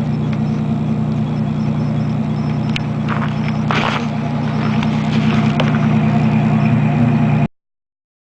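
Steady low mechanical hum with a few brief crunching, scraping noises over it, cutting off abruptly about seven and a half seconds in.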